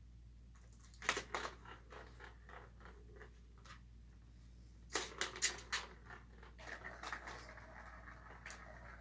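Cats scratching and pawing at new toys, a cardboard scratch pad and a plastic ball-track toy. Two bursts of sharp clicks and scratchy rasps come about a second in and about five seconds in, and a steadier scratching rasp follows near the end.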